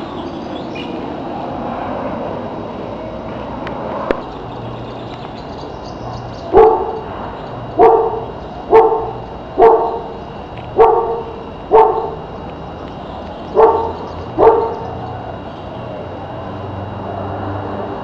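A dog barking eight times, starting about six seconds in, roughly once a second with a short pause before the last two barks.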